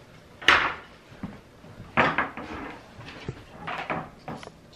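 Red plastic trays and metal wire racks of a two-tier dish drainer knocking and clattering against each other and the wooden tabletop as they are handled and fitted together. Several separate clatters, the loudest about half a second in.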